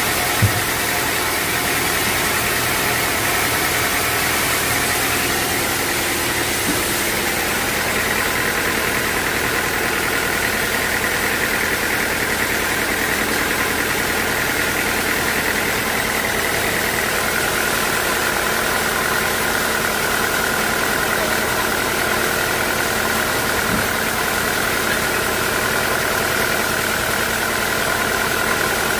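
Band sawmill machinery running steadily, with a high whine that steps down in pitch about halfway through. A short knock sounds just after the start.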